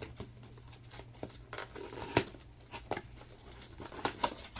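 Papers and a cardboard box being handled: scattered light taps, clicks and paper rustling.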